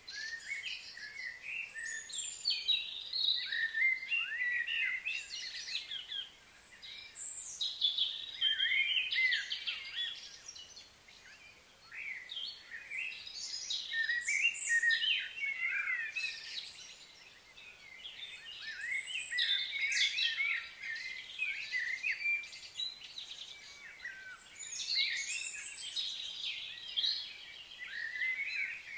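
Many small birds chirping and calling over one another, quick high chirps that come in waves with short lulls between.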